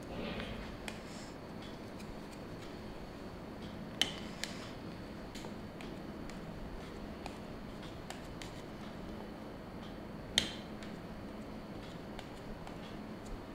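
A knife cutting soft dhokla into squares on a steel plate, its blade clicking against the metal now and then. There are a few sharp clicks, the loudest about four seconds in and again about ten seconds in, over a faint steady hum.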